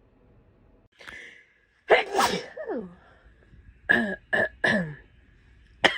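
A person sick with COVID sneezing: one loud sneeze about two seconds in, then three short quick bursts a little after four seconds, and another sharp one near the end.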